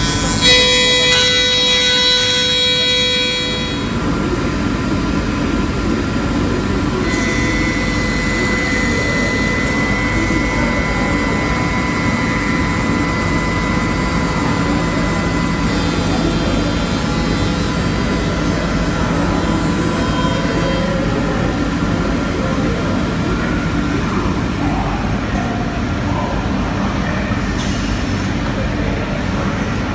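Soukup Versa drilling and milling machine running steadily as it mills trickle-vent slots in a wooden casement window profile. A high whine is loudest in the first few seconds, then settles into a steady machine hum.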